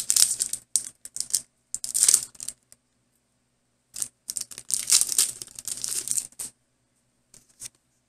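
Foil wrapper of a Pokémon TCG booster pack crinkling and tearing as it is ripped open, in bursts during the first couple of seconds and again in a longer stretch about four seconds in. Two faint ticks near the end as the cards are handled.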